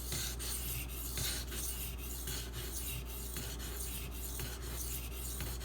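Knife blade of Super Gold (SG2) powder steel being stroked back and forth across a wet Shapton Pro 1000-grit waterstone, a rhythmic gritty rasp of about two to three strokes a second. The steel is grinding quickly and easily.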